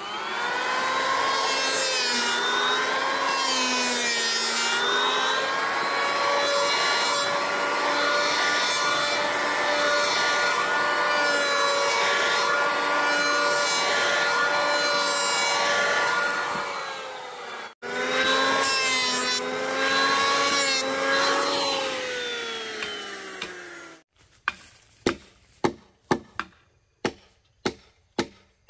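A power saw cutting wood, its motor pitch dipping and recovering under load. It stops for an instant about two-thirds through, starts again, then winds down with a falling pitch. Near the end come a run of sharp knocks, about two a second.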